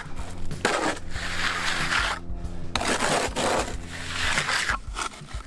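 Steel trowel scraping and smoothing wet stucco across a wall in repeated sweeping strokes, about one a second.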